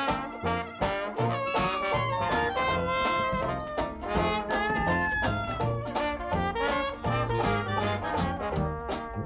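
Background music: an upbeat jazz or swing tune with brass instruments and a walking bass line.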